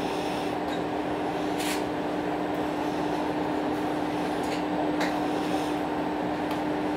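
Steady hum of a stationary diesel railcar waiting to depart, heard on board, with one constant mid-pitched tone running through it. A brief hiss comes about two seconds in and a short click about five seconds in.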